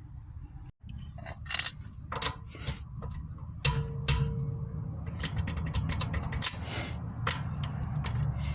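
Metal tools and hardware clinking and knocking during a tire change: scattered sharp metallic clicks, then a quick run of clicks about halfway through, some followed by a brief ringing tone.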